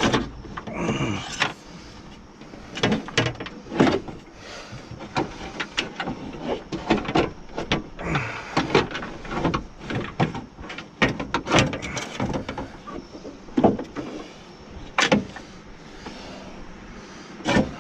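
Irregular metal clanks, knocks and scraping from hand tools and the window regulator parts being worked inside a car door, with a few short squeaks.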